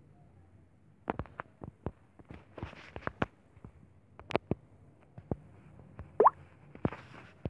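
Irregular sharp clicks and taps, as of fingers tapping a phone's touchscreen, coming thickly from about a second in. A short rising chirp is heard a little after six seconds.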